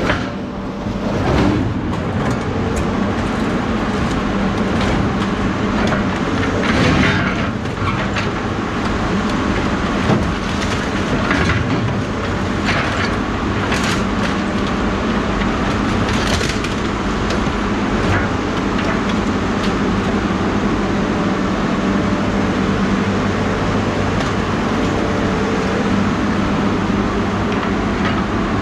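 A vehicle engine running steadily, with short clanks and rattles over it in the first half.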